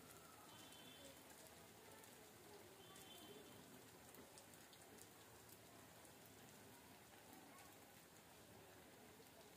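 Faint, steady sizzling and crackling of bread-coated potato fingers deep-frying in hot oil.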